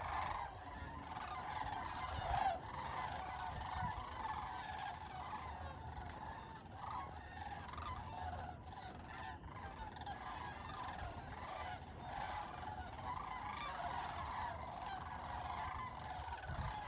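A large flock of birds calling overhead, many overlapping calls running together in a continuous chatter.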